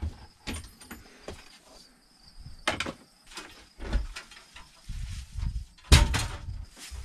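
Irregular knocks, clatters and a few low thuds of tools and a metal folding step stool being handled and shifted inside a plywood-lined work trailer. The loudest knock comes about six seconds in.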